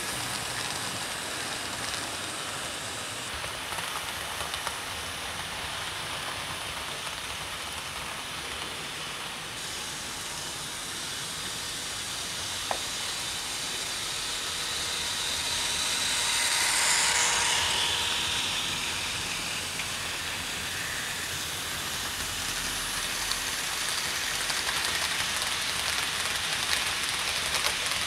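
00 gauge model trains running on the layout: an even rushing of small wheels on track and motors, with faint clicks, swelling as a train passes close about two-thirds of the way through.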